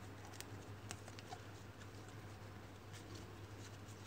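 Faint, scattered light clicks and slides of trading cards being handled and flipped through one by one, over a low steady hum.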